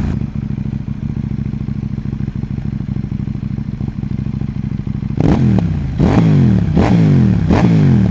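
KTM Duke 790's parallel-twin engine idling steadily, then blipped four times in the last three seconds, each rev rising sharply and falling back to idle.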